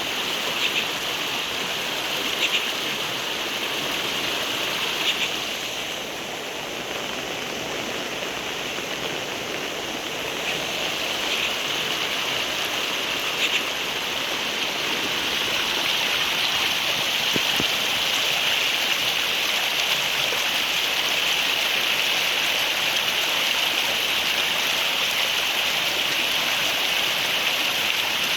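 Rain falling steadily, a continuous hiss of water with a few brief sharp ticks in the first seconds, growing louder after about ten seconds.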